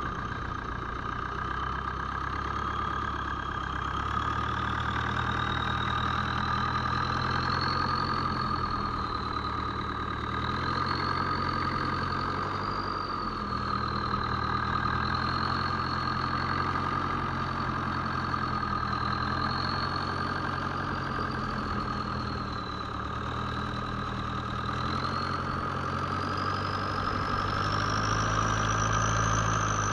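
Fishing boat's engine running steadily, its pitch drifting slowly up and down and climbing near the end.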